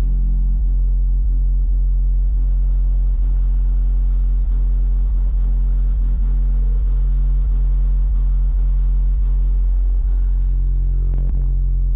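Eight Skar DDX subwoofers playing a loud, steady deep bass tone that holds without a break, with faint scattered ticks over it.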